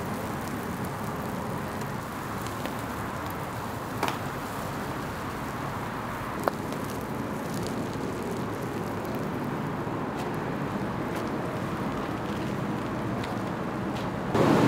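Steady rushing background noise of a restaurant grill kitchen, with two short clicks a couple of seconds apart. Near the end the noise jumps sharply louder.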